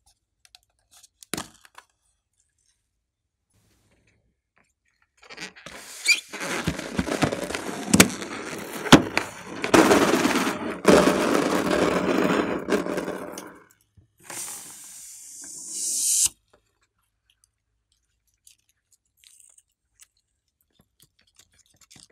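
A rubber balloon being handled, with rubbing and squeaking noise and sharp crackles for about eight seconds. A shorter hissing rush follows, growing louder before it cuts off suddenly, as the balloon is emptied. A single click comes shortly before.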